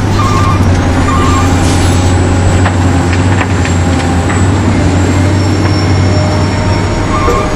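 Remote-control toy construction trucks running: a steady hum and whine of small electric motors and gears. A short run of repeated beeps sounds just after the start and again near the end.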